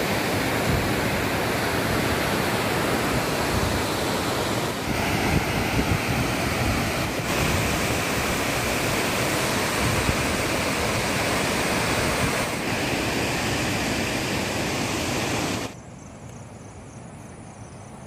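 Water pouring over a concrete dam spillway: a steady, loud rush. Near the end it cuts suddenly to a much quieter steady hiss.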